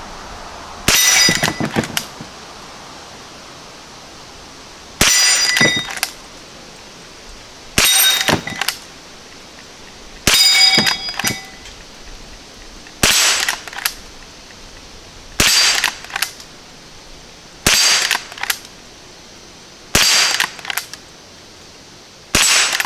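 Henry Golden Boy .22 LR lever-action rifle fired nine times, about one shot every two and a half seconds, each crack followed by the ringing clang of a steel gong target and a few quick clicks as the lever is worked for the next round.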